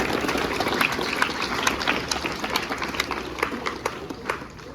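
A crowd applauding: many hands clapping unevenly, the clapping thinning out and dying down toward the end.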